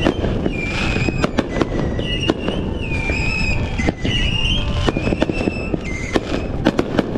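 Fireworks display: a rapid string of bangs and crackles from aerial shells bursting, with a high whistling tone coming and going over them.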